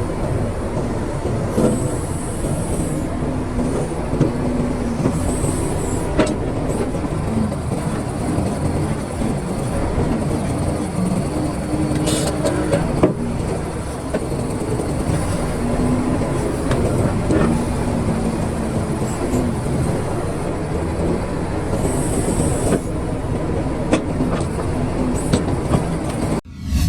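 Caterpillar excavator at work: a steady engine rumble with scattered metallic clanks and a few brief hisses, cutting off suddenly near the end.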